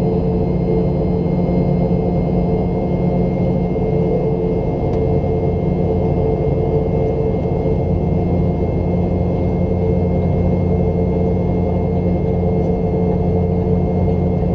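The two BMW Rolls-Royce BR715 turbofan engines of a Boeing 717 running steadily, a continuous loud drone with a few steady tones in it.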